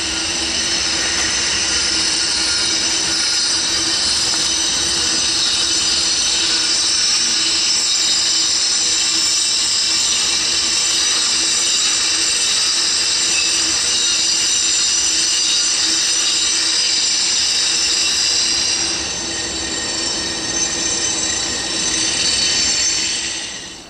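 Double-deck metronom regional train running slowly through the station, its wheels giving a steady, high-pitched squeal over the rumble of the train. It eases slightly near the end, then cuts off suddenly.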